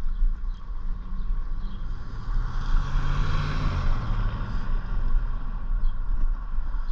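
A motor vehicle passes. Its engine and tyre noise swell to a peak about three seconds in, then fade, over a steady low rumble.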